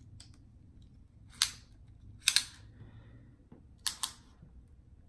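Small retractable tape measure handled and pulled out, giving short sharp clicks and zips: one about a second and a half in, a louder pair a second later, and another pair near the end.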